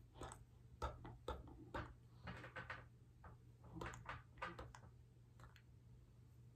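Faint, scattered soft clicks, knocks and rustles from the signer's hands and body moving, over a low steady electrical hum.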